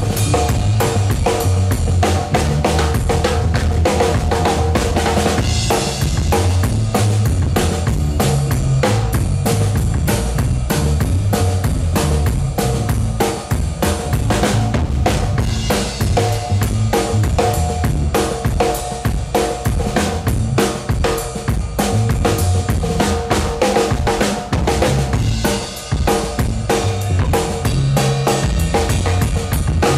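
Live rockabilly band playing, led by a stand-up drum kit with bass drum, snare and cymbals, over the shifting low notes of an upright bass.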